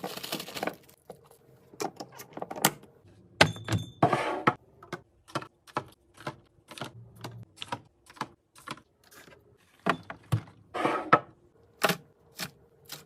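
Plastic and glass containers and packaging handled while restocking a fridge: a quick run of small clicks, taps and knocks as items are set down, with rustling of packaging at the start, about four seconds in and about eleven seconds in.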